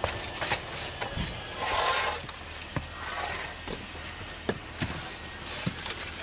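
Scattered light knocks and clicks of work on a tile roof, with a brief rushing scrape about two seconds in and a fainter one about three seconds in.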